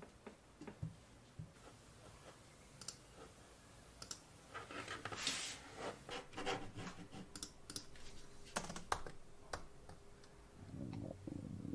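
Typing on a computer keyboard: quiet, irregular keystrokes and clicks that come thicker and louder in the middle.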